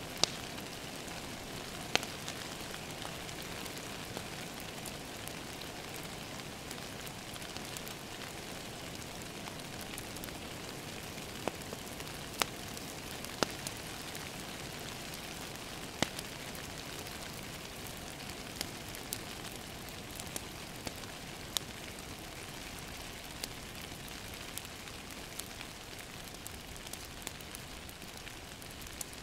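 Steady rain pattering on a window, with sharp, irregular pops and crackles of a wood fire scattered through it.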